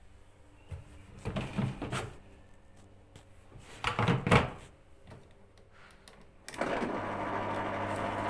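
A few knocks and clatters of handling, then about six and a half seconds in a twin-tub washing machine switches on and runs with a steady whooshing hum.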